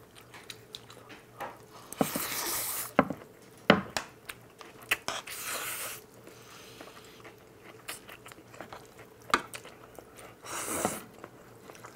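People slurping and chewing Chapagetti black-bean instant noodles: three long slurps about two, five and ten and a half seconds in, with short clicks and taps between them.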